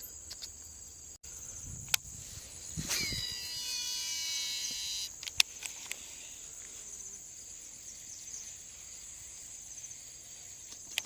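Insects chirring steadily in a high, even band. About three seconds in, a whirring with several tones falling in pitch runs for about two seconds, along with a few sharp clicks.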